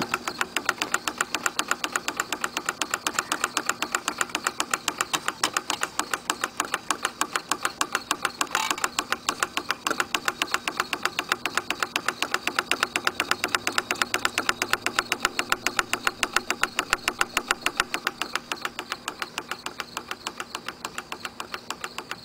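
Homemade candle-heated Stirling engine fan running, its coat-hanger crank and piston linkage ticking steadily several times a second. One louder knock comes about nine seconds in.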